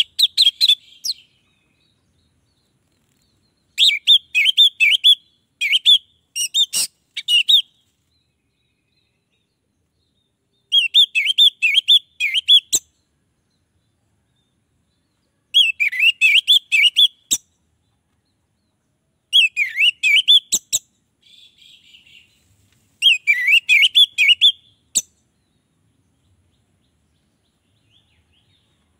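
An orange-headed thrush singing in short bursts of rapid, warbling notes, about six phrases with silent pauses of a few seconds between them.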